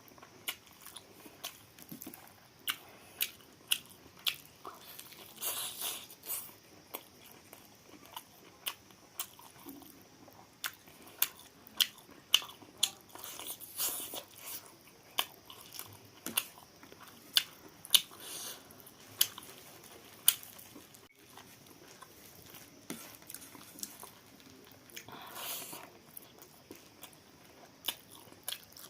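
Close-miked eating: chewing and biting into chicken curry with rice, with frequent short wet clicks and smacks of the mouth at an irregular pace.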